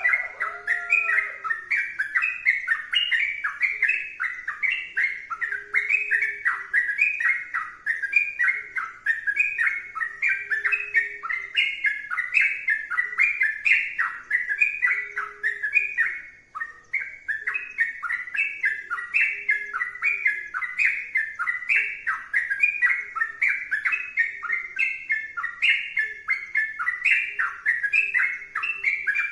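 Yellow-vented bulbul (trucukan) singing nonstop in rapid, repeated chirping phrases, with one brief pause about halfway through.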